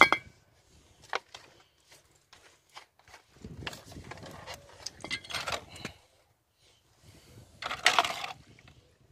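Handling of a plastic petrol bottle and a metal sprocket: a sharp click at the start, rustling and scraping in the middle, then petrol poured from the bottle over the sprocket in a bowl, a short splashing burst near the end.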